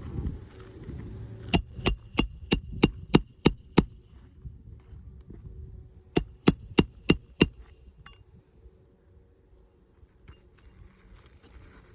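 Roofing hammer blows on a roof snake, driving nails back in under asphalt shingles. There is a quick run of about eight ringing metallic strikes, then a pause, then about five more.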